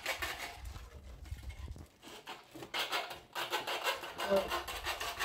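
Plastic wrap rustling and a cardboard carton scraping and rubbing as a battery is unpacked from its box, an irregular run of rasping handling noises.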